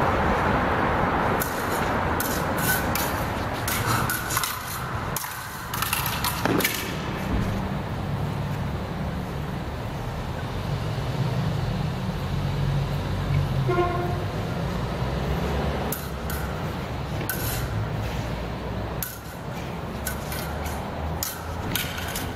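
Practice rapiers and daggers clashing in two flurries of sharp clicks and clinks, with a quiet gap between them while the fencers stand apart. Under it runs a steady low rumble, and a short beep sounds about fourteen seconds in.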